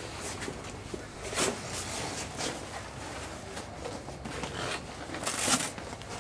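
Rustling and shuffling of bedding and clothing as people move about by the bunks, with scattered soft knocks, the loudest about a second and a half in and again near the end.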